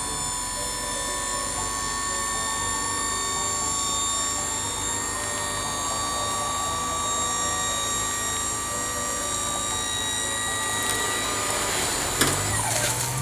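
Small dump truck's hydraulic tipping gear whining steadily as the bed rises. Near the end the bark mulch slides off the tipped bed in a brief loud clatter, and the whine drops in pitch.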